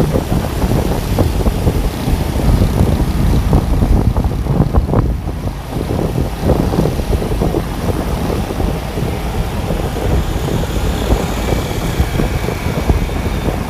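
Wind buffeting the microphone on a moving vehicle, a rough low rumble of rushing air mixed with road and traffic noise.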